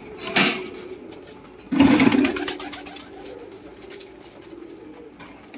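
Domestic pigeons cooing, low and drawn out. Two short loud noises break in, about half a second in and, louder, about two seconds in.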